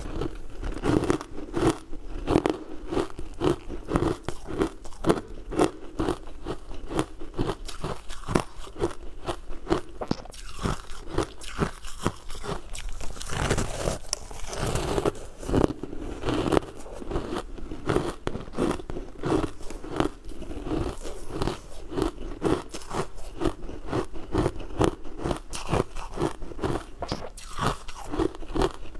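Refrozen ice chunks being bitten and chewed close to the microphone: a steady, continuous run of crunches.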